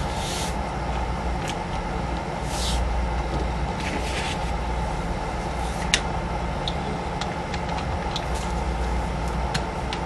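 Plastic puzzle-cube pieces being handled and pressed into place: short rustles and a scattered series of small sharp clicks, over a steady background hum.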